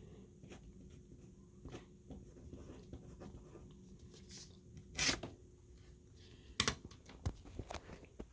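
Handling noise of a phone being held and fiddled with: faint rubbing and scratching with scattered clicks, a louder rustle about five seconds in and sharper clicks about a second and a half later, over a faint steady hum.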